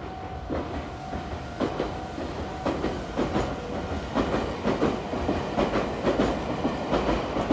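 Meitetsu 5000 series electric train passing, its wheels clacking over the rail joints and the level crossing. The clacks are spaced about a second apart at first, then come quicker and close together from about three seconds in, over a steady rumble.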